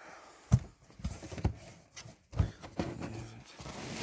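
Handling noise while rummaging through clutter: a few irregular knocks and clunks with rustling as objects are picked up and moved about.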